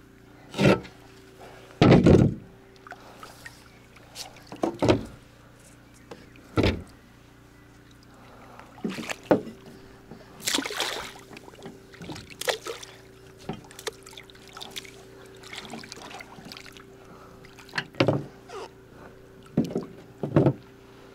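Small fishing boat under way on the river: a faint steady hum with about a dozen irregular knocks.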